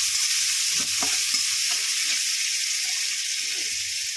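Chopped onions sizzling in hot oil in a wok, stirred with a metal spatula that scrapes against the pan a few times, most clearly about a second in.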